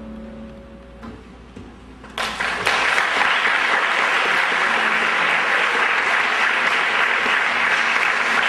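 The last notes of an acoustic guitar and cello piece die away, then about two seconds in an audience bursts into applause that carries on steadily.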